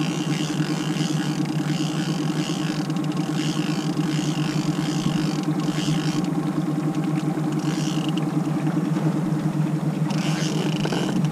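Boat's outboard motor running steadily at trolling speed, a constant low hum with a hiss above it that comes and goes.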